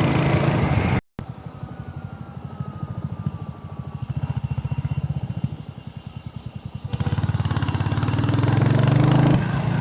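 Royal Enfield Hunter 350's single-cylinder engine running at low revs with a steady, even thumping beat. A brief silent gap about a second in, and the engine is louder from about seven seconds in.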